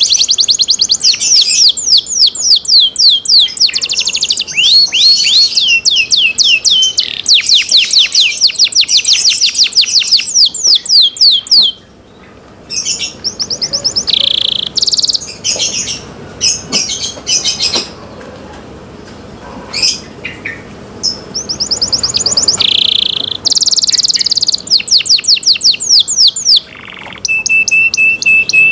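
Domestic canary singing: long, fast trills of repeated sweeping notes, breaking off briefly about twelve seconds in, then varied phrases with short held whistles and more rapid trills.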